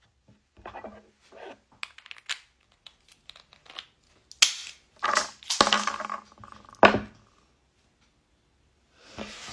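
Walnut shells crushed and broken apart by hand. First come small crackles, then several sharp, loud cracks about four to seven seconds in.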